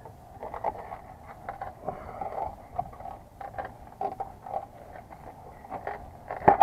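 A screwdriver prying and scraping behind a rusted sheet-steel electrical disconnect box mounted on brick, with irregular scrapes and small clanks of the loose metal box, and one sharp, loud clank near the end.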